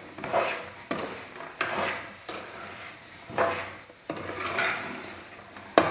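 Peanuts being stirred through hot salt in a metal pan: a series of rattling, scraping strokes about once a second, with a sharp knock of the utensil on the pan near the end. The peanuts are being dry-roasted in salt.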